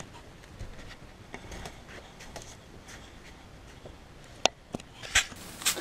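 A few light clicks and knocks over quiet room tone in a small motorhome interior, with several sharper clicks near the end.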